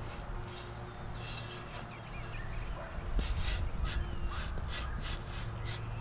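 A bird giving a quick run of harsh, raspy calls, about three a second, in the second half, with a few fainter calls earlier. A low rumble runs underneath.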